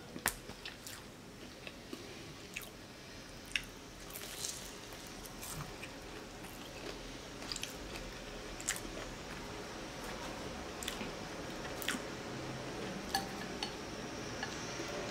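Close-up chewing and biting on a fried vegetable roll, with short sharp crunches and clicks scattered through.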